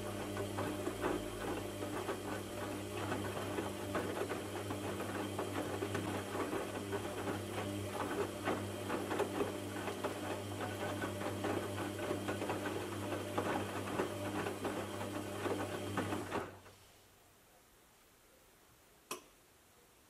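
Aldi front-load washing machine in its wash stage: the drum motor hums steadily as the drum turns, with water sloshing and wet clothes tumbling. About sixteen seconds in the motor stops and the drum comes to rest, and a single click follows near the end.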